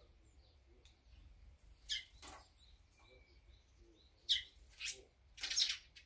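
Wild birds calling: several short calls, the loudest about two seconds in and again from about four seconds, ending in a longer scratchy call near the end.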